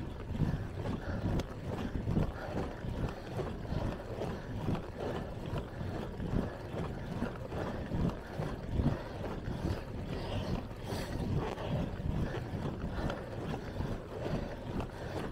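Wind rushing over the microphone of a handlebar-mounted camera on a moving bicycle, mixed with tyre noise on asphalt and frequent small, irregular knocks and rattles from the bike.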